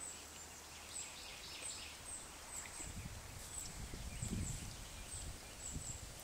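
A small bird chirping again and again, short high falling chirps about every half second, with a low rumble from about three seconds in to about five seconds in.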